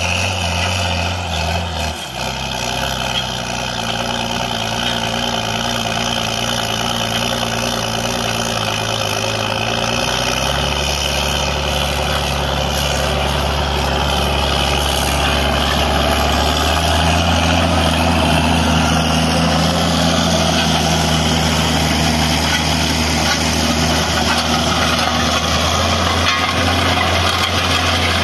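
John Deere 4455 tractor's six-cylinder turbo diesel running steadily under load while pulling a disc harrow through dry stubble, its note shifting a few times and growing louder as the tractor comes closer.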